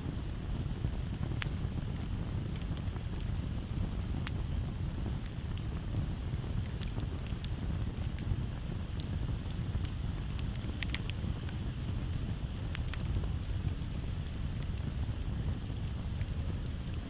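Campfire crackling, with frequent sharp pops over a low steady rumble, and a steady high trill of crickets in the background.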